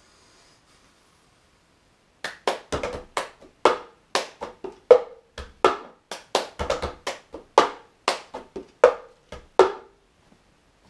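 Cup-song percussion: hand claps, hands slapping the wooden table top, and a plastic cup tapped and knocked down on the table in a quick rhythm. It starts about two seconds in and stops about a second before the end.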